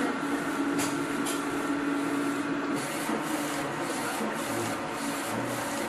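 LED UV flatbed printer running as it prints on a wooden board: a steady mechanical hum, then from about halfway a rapid rhythmic hiss of about three pulses a second as the print carriage shuttles back and forth.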